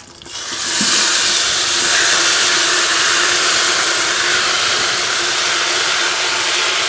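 Loud, steady sizzle of food frying in hot oil in a cooking pot, swelling up within the first second.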